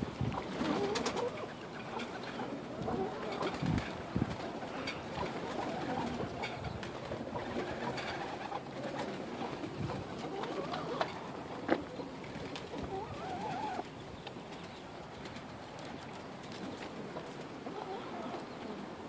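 Domestic pigeons cooing, with scattered clicks and knocks among them; one sharp knock stands out about twelve seconds in.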